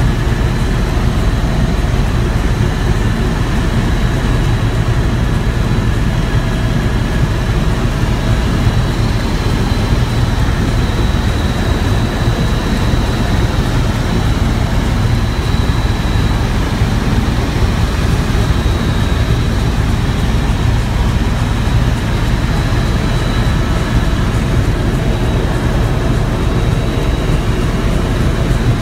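Helicopter in flight, heard from inside the cabin: the loud, steady drone of its engine and rotor, with a thin steady high whine above it.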